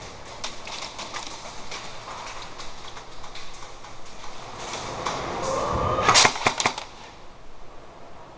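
Airsoft guns firing: scattered sharp pops, with a quick cluster of louder shots about six seconds in.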